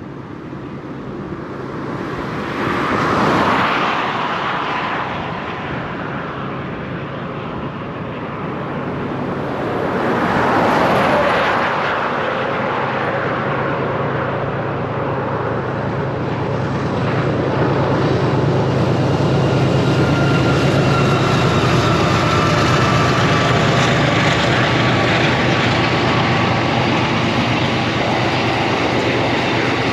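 Diesel-electric locomotives of a narrow-gauge freight train approaching, their engine drone with a steady low hum growing louder through the second half. Two earlier swells of rushing noise rise and fade, about three and eleven seconds in.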